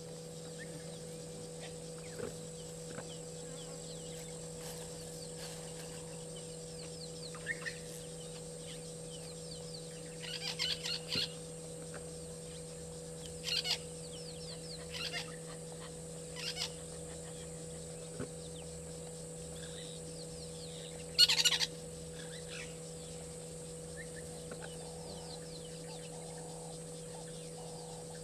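Birds calling in a handful of short bursts, the loudest about two-thirds of the way through, over a steady electrical hum and a faint steady high hiss.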